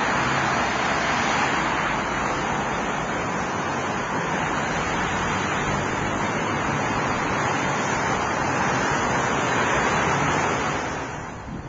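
Steady rush of freeway traffic passing below on a multi-lane expressway, a dense, even noise of tyres and engines with no single vehicle standing out. It drops off sharply about eleven seconds in.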